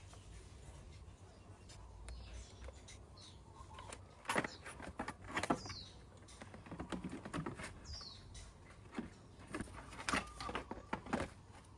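Hard plastic body covers of a Genuine Hooligan 170cc scooter knocking and clicking as they are handled and seated into place, in irregular knocks. A bird chirps faintly a couple of times.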